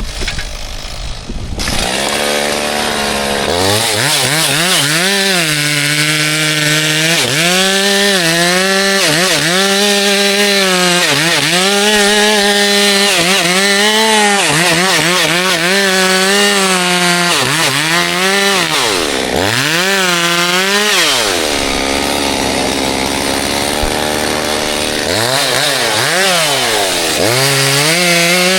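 Two-stroke chainsaw cutting wood, its engine speed repeatedly dipping under load and climbing back about every second and a half. Partway through it holds a steadier speed for a few seconds before the dips return.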